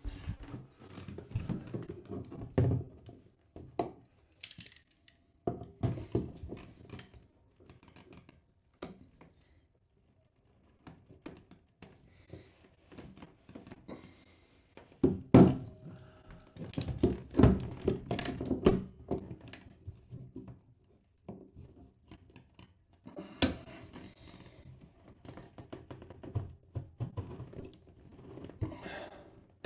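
Hand tools knocking, clicking and scraping against a plastic bathtub's drain as it is turned to unscrew it, in irregular bursts that are loudest around the middle and again near the end.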